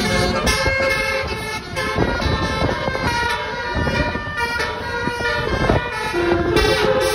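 Multi-tone bus horn playing a tune, its sustained notes changing pitch every half second or so, over the low running of a vehicle on the road.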